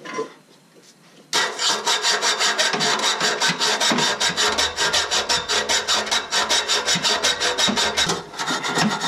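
Hand hacksaw sawing through a car's steel exhaust pipe in fast, even back-and-forth strokes, several a second, starting after a short pause about a second in. It is finishing the cut on the pipe to the rear muffler, the part up top that a cutoff wheel could not reach.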